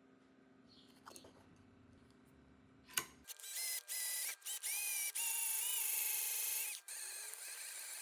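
A faint hum, a sharp click about three seconds in, then an electric drill motor whining in several short bursts, each rising in pitch as it spins up, the last one the longest, then running on a little quieter.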